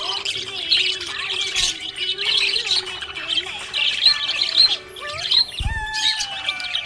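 Pet budgerigars chirping and squawking in a rapid, continuous stream of short high calls.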